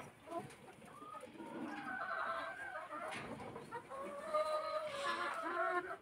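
A flock of hens clucking, with many short calls overlapping one another.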